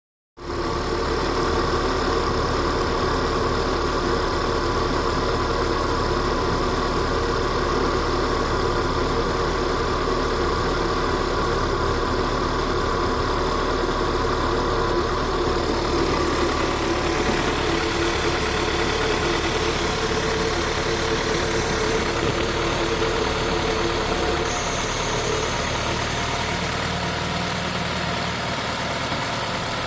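VW Golf 6 TSI four-cylinder petrol engine idling on warm-up, heard under the bonnet as a steady running note whose tone shifts a little about halfway through and again near the end. The engine is shaking on this warm-up idle, which the owner asks may be a misfire.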